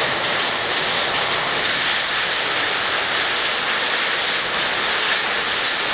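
Heavy rain mixed with hail pouring down onto wet pavement and standing water: a dense, steady hiss.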